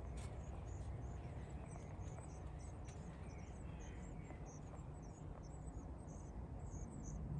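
Baby birds in a hidden nest cheeping: many short, very high chirps in quick succession, faint over a low background rumble.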